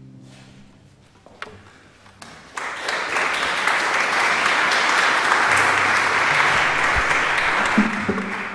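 Last acoustic guitar chord dying away, then audience applause: a few scattered claps, building about two and a half seconds in to steady clapping that fades near the end.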